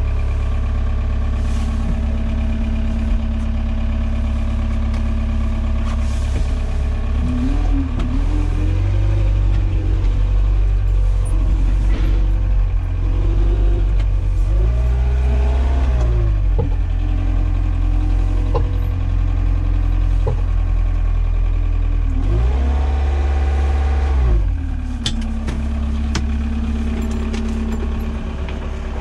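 Forklift engine idling, then revving up and back down three times, each rise in pitch lasting about two seconds.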